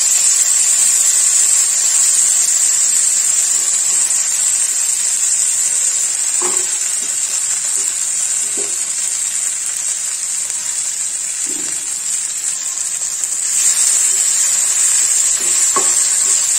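Boiled jackfruit seeds and onion sizzling in hot coconut oil in a nonstick frying pan, a steady high hiss, while a wooden spatula stirs them, knocking lightly against the pan a few times.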